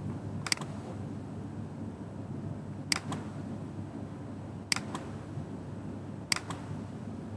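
Four computer mouse clicks, each a quick double snap of press and release, about every two seconds, over a steady low hum.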